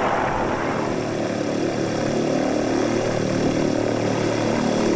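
Single-engine Cessna light aircraft in flight, its propeller engine running steadily.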